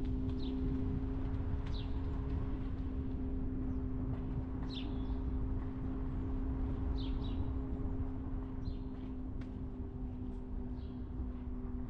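Car driving: a steady low rumble with a constant hum, and a scattering of short, high chirps that fall in pitch.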